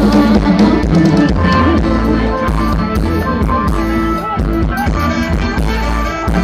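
Live band playing an instrumental passage of an Isan luk thung song: electric guitar and melody lines over a steady drum-kit beat.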